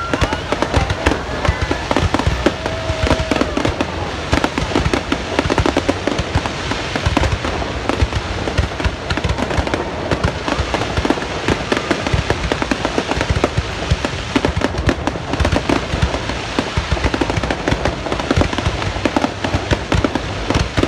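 New Year fireworks going off without a break: a dense, loud crackle of many overlapping pops and bangs.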